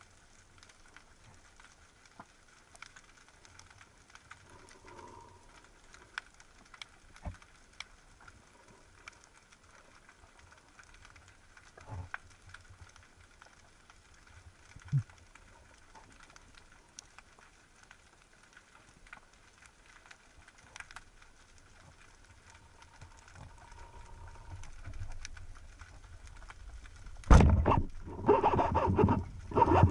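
Quiet underwater background with scattered faint clicks. About 27 seconds in, a rubber-band speargun fires with a sudden loud crack, followed by loud rattling and rushing noise as the shot plays out.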